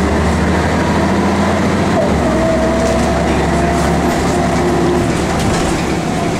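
Interior of a 1996 Scania L113CRB route bus under way: its rear-mounted 11-litre six-cylinder diesel and drivetrain running with a heavy low rumble, heard from inside the cabin. A steady whine comes in about two seconds in, and the low rumble shifts about four seconds in.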